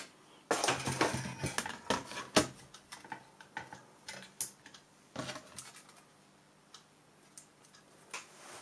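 Knocks and clicks of a computer mainboard being handled, turned over and set down on a desk. They come thick for the first couple of seconds, with a sharp one near the middle, and die away for the last few seconds.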